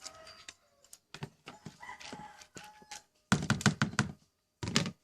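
Kitchen handling noise as a dish of chicken rice goes back into the microwave: scattered clicks and light knocks, then a loud clattering stretch about three seconds in and a short thud near the end.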